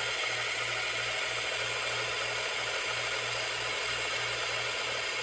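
Battery-powered toy blender running steadily, its small motor spinning the blade in a jar of water with an even whir and a low hum underneath.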